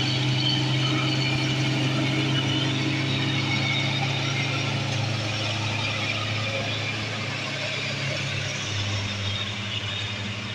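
Diesel engines of heavily loaded Mitsubishi Fuso trucks labouring at low speed up a hill, a steady drone; its tone drops a little near the end as the trucks pull away.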